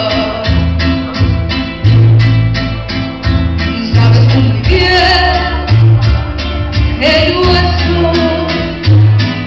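A woman singing into a microphone over Latin-style backing music with a strong pulsing bass line and steady percussion. Her voice comes in with held, wavering notes about halfway through and again near the end.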